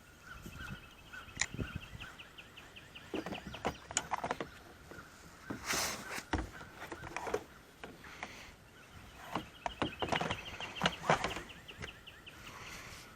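Crows cawing in agitation, worked up over something nearby, with harsh calls coming in irregular bouts. A fast rattling call repeats through two stretches.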